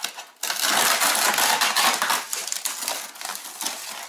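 Packaging being torn open: a loud crackling, rustling rip that starts about half a second in and eases off after a couple of seconds into lighter crinkling.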